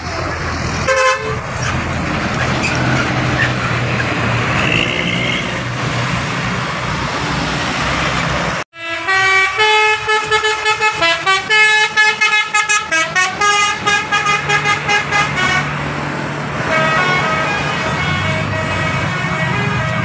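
A tour bus passing with its engine running and road noise, then a bus 'telolet' horn, a multi-trumpet horn playing a fast pulsing melody of changing notes, starting abruptly about halfway through and going on more faintly near the end.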